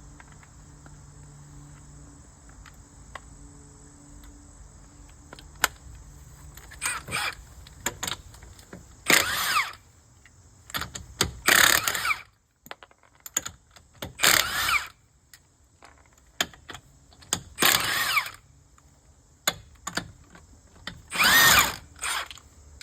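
Impact gun spinning off the lug nuts of a car's front wheel in five short bursts, each about a second long, with rising and falling whine.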